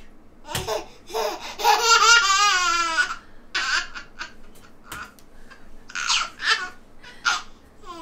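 A nine-month-old baby laughing in repeated bursts, with one long, wavering peal about two seconds in. A couple of sharp taps are heard between the laughs.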